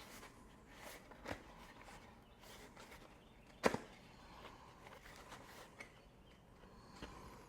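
Faint handling noise of a child's bicycle wheel as the tire is worked back onto the rim by hand, with four light knocks, the loudest a little past halfway.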